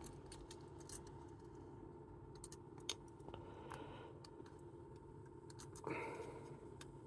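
Faint, scattered small metal clicks as the levers of a Chubb detector lever lock are fitted back into the lock by hand.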